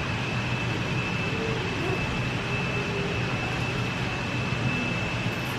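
Steady ventilation-fan hum with a thin, constant high whine, under faint background voices.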